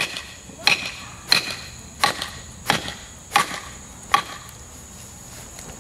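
A wooden baton striking the spine of a Glock field knife, driving its blade down into a tree stump: seven sharp knocks at an even pace, about 0.7 s apart, stopping a little after four seconds.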